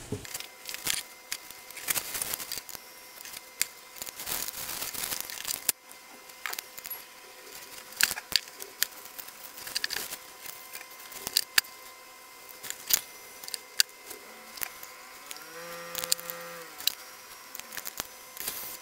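Small handling noises on a turntable chassis: scattered clicks, taps and rubbing as cotton swabs clean the metal tonearm guide rod and its shelf. A faint steady whine runs underneath, and a brief pitched whine rises and falls about 16 seconds in.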